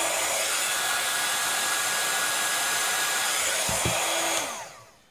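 Craft embossing heat tool blowing hot air steadily while reheating a candle's surface, then switched off about four and a half seconds in, its fan winding down with a falling pitch. A low bump just before it is switched off.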